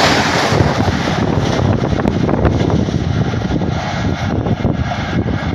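Passenger train rushing past at speed close by, a loud rush of wheel and air noise. About a second in the high hiss drops away, leaving a lower, rougher rumble with irregular knocks.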